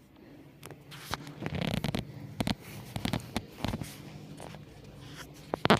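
A metal spoon scraping and clinking against a stainless-steel bowl as it stirs dry flour and powdered sugar into a raw egg, with a rustle of flour and a sharp clink near the end.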